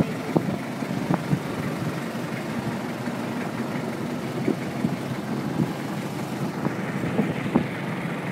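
A boat's engine running steadily as the boat moves along the water.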